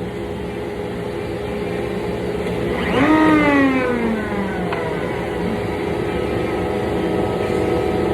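Router motor on a router table running at speed while routing a cutout in a wooden subwoofer panel. About three seconds in, its whine gets louder and drops in pitch over a second or so, as the small bit takes load in the cut, then it settles back into a steady run.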